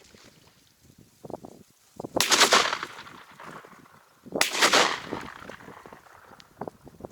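Two shotgun shots about two seconds apart, each sharp and loud and trailing off over most of a second.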